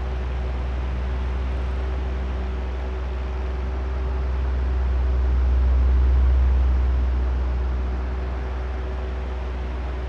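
Oscillating electric fan running: a steady airy drone over a low motor hum and a faint steady tone. It swells louder about six seconds in as the fan head sweeps past, then eases back as it turns away.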